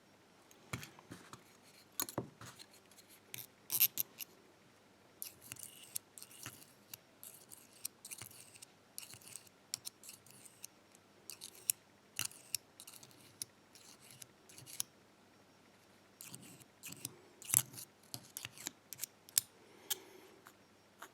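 Small metal tools handled against an old lock cylinder: irregular light clicks, taps and scratches, some quick runs of scraping, with no steady rhythm.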